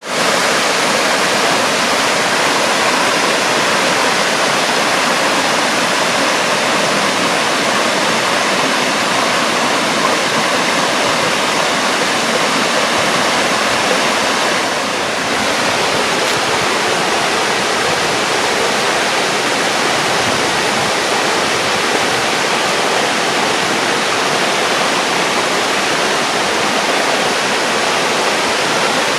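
Waterfall rushing: a steady, dense wash of falling water that holds at an even loud level throughout.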